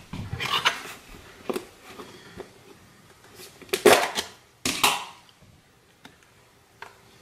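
Sharp clicks, knocks and crackles of plastic kitchen containers being handled on a countertop, including a plastic whipped-topping tub; the loudest come in two clusters about four and five seconds in.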